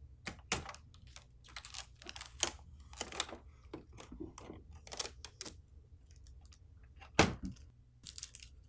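Blue packing tape being peeled off a printer's plastic casing and crumpled in the hands: a string of short crackles and clicks, with one sharper knock about seven seconds in.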